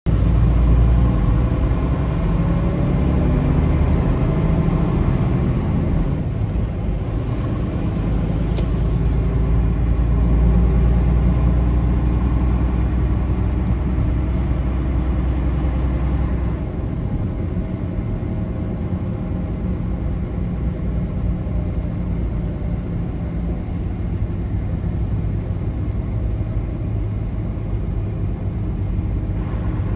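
Steady low rumble of a moving road vehicle. The deepest part of the rumble drops away a little past halfway, leaving a lighter, steady rumble.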